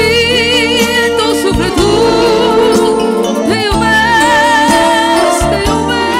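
Live wedding music: a singer with a wide, wavering vibrato over held accompaniment chords and a bass line.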